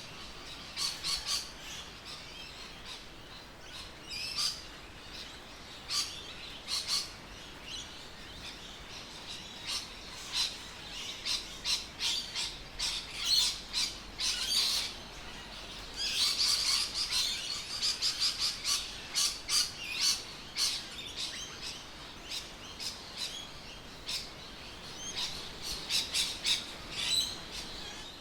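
Birds chirping and calling: many short, sharp notes in quick clusters, busiest in the second half.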